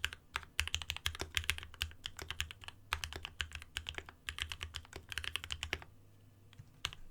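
Fast typing on a Space65 custom keyboard with lubed H1 tactile switches, an aluminum plate and EnjoyPBT PBT keycaps, on a desk mat. A rapid, continuous run of keystrokes stops about six seconds in, followed by a single key press near the end.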